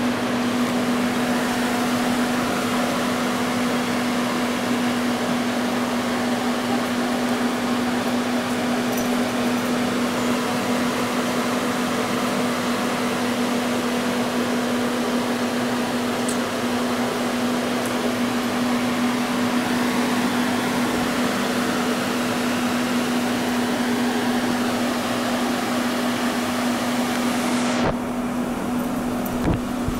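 A steady machine hum with a constant low droning tone under an even hiss. The hiss thins out abruptly near the end.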